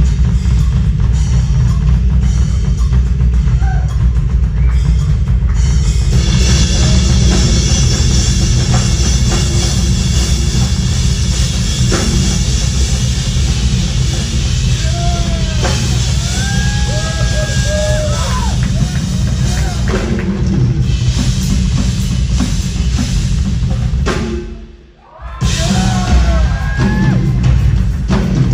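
A live rock drum solo on a full drum kit, dense and loud, with heavy bass drum and low drums. The sound briefly drops out for about a second near the end.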